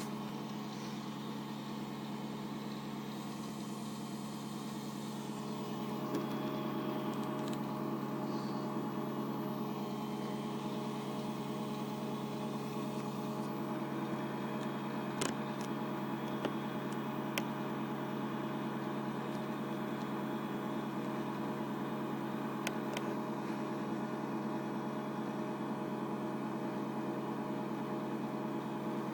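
Daewoo DWDM301WP washing machine in its final spin at 700 rpm: a steady motor hum, getting a little louder about six seconds in, with a few faint ticks.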